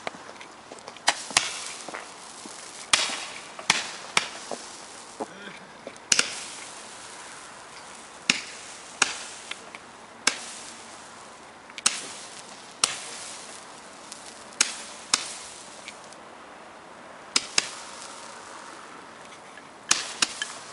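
Moog 15-shot Roman candles firing: a sharp pop with each star launched, at irregular intervals of one to two seconds, some shots coming in close pairs.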